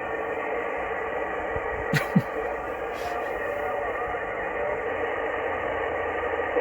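CB radio receiver on 27 MHz sideband hissing with band noise, with a sharp double crackle of lightning static about two seconds in. A faint, distant station's voice is barely audible under the hiss.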